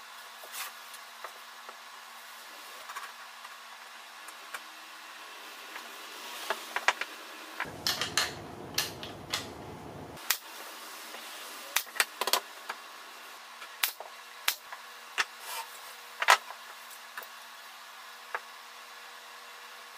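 Pneumatic brad nailer firing nails into plywood edges: about a dozen sharp shots in quick clusters, over a faint steady hum.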